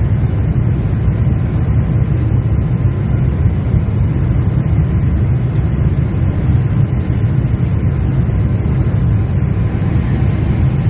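Steady low rumble of a Boeing 747-8 airliner heard from inside the passenger cabin, holding an even level without rising or falling.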